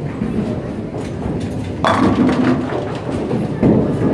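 A Seismic Venator Evolution bowling ball rolling down the lane, then crashing into the pins about two seconds in with a loud clatter of pins for a strike. A further knock follows near the end.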